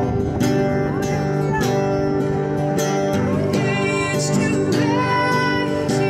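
Acoustic guitar strummed in a steady rhythm, about two strums a second, with a woman's voice coming in to sing a worship song about halfway through, amplified through a small portable speaker.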